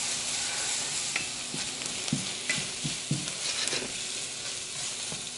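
Diced chicken breast sizzling in a stainless steel frying pan while a wooden spatula stirs in curry paste, knocking against the pan several times over a steady hiss.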